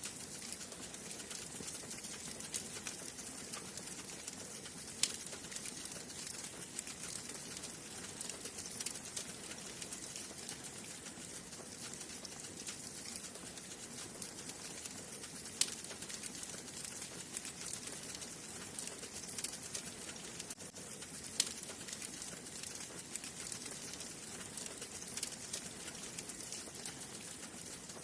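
Wood fire burning in a fireplace: a steady hiss with scattered sharp crackles and pops, the loudest about five, fifteen and twenty-one seconds in.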